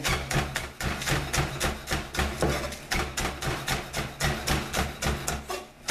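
Chef's knife chopping green onions on a wooden cutting board: a quick, even run of knocks, about four to five a second, as the blade strikes the board.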